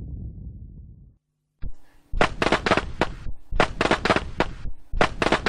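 A low rumble fades away, followed by a moment of silence. Then firecrackers pop in rapid clusters of sharp cracks, with short pauses between the clusters.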